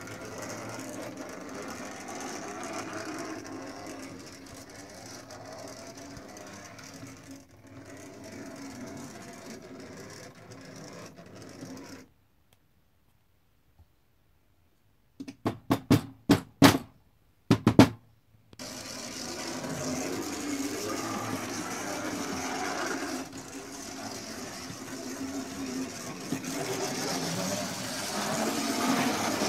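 Kit-built white metal OO gauge 0-6-0 tank locomotive running on its X04 motor chassis: a steady mechanical whirr and rattle of the small motor and wheels on the track. It stops for a few seconds about halfway, and a quick run of sharp knocks follows before the steady whirr starts again, louder near the end.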